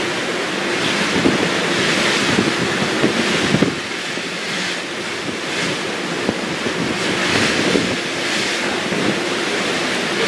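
Wind blowing across the microphone on the open deck of a ship at sea, mixed with the rush of the sea. It is a steady, gusting noise that eases slightly about four seconds in.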